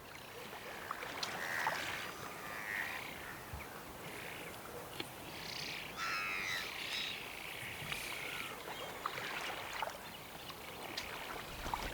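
Wild birds calling: scattered short calls and small clicks, with a harsh, rasping call about six seconds in.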